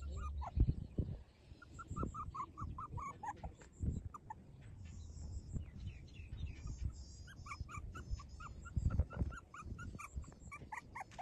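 Very young puppy whimpering in runs of short, high-pitched squeaks, with a few low thuds.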